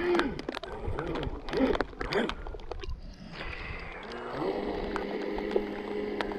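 Radio-controlled Pro Boat speedboat's electric motor: its steady whine drops off at the start, there are scattered clicks in a quieter stretch, and about four seconds in the whine rises and holds steady as the boat runs flat out in circles on the water.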